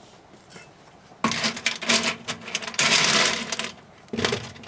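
A heap of loose metal screws rattling and clinking against each other in the bottom of a microwave, a dense clatter that starts about a second in and stops just before the end. The screws are freshly microwaved and scorched.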